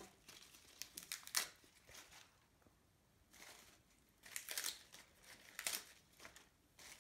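Fresh escarole leaves rustling and crinkling as they are handled and laid into a metal baking dish, in several short, faint bursts.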